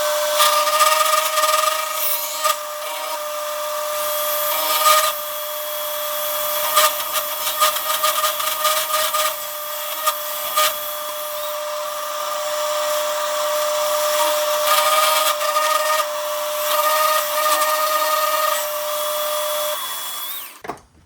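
Milling machine cutting slots in a steel plate with an end mill: a steady whine with rough scraping and clicking chatter from the cut, stopping suddenly near the end.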